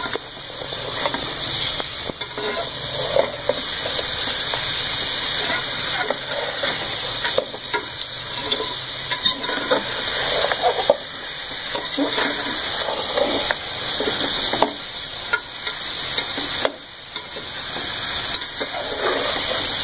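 Beef pieces frying and sizzling in a metal pot while a metal spatula stirs and scrapes them, with scattered knocks of the spatula against the pot.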